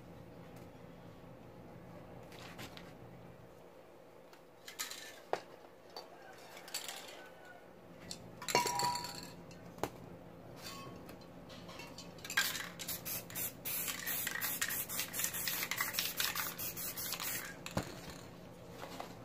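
Aerosol spray paint cans clinking as they are handled on the table, then about five seconds of dense rapid rattling and hissing from a spray can, ending shortly before the end.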